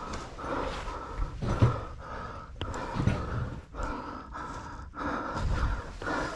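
A person's heavy breathing close to the microphone, in and out roughly once a second, with a single sharp click about two and a half seconds in.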